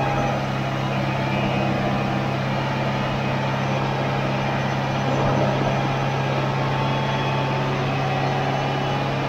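2006 Subaru Impreza's 2.5 L flat-four engine running steadily at idle in third gear with the car on a lift and the drivetrain turning, giving a steady drone with a whine. The owner traces the whine to the transmission's rear bearing, where the driveshaft enters the transmission.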